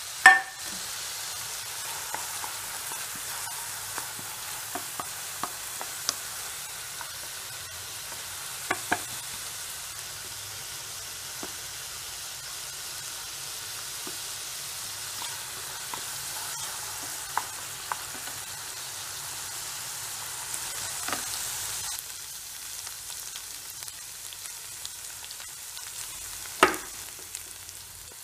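Chopped onions and green chillies sizzling steadily in oil in a frying pan, stirred with a wooden spatula. Sharp knocks come now and then, the loudest just after the start and near the end.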